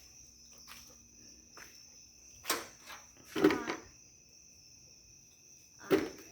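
A faint, steady high-pitched tone throughout, broken by three sharp knocks or clacks about two and a half, three and a half and six seconds in, the sound of handling objects against one another.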